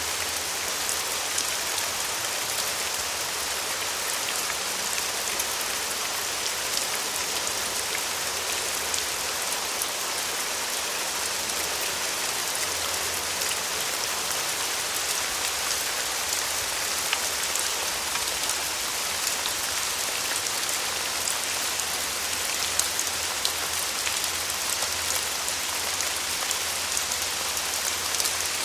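Steady rain falling, with a dense patter of individual drops ticking through it at an even level.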